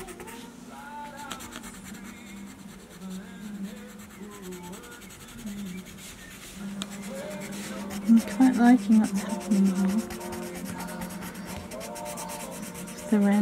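Coloured pencil rubbing and scratching on paper in quick repeated shading strokes, over a layer of metallic ink. A quiet melody runs underneath and grows louder about eight seconds in.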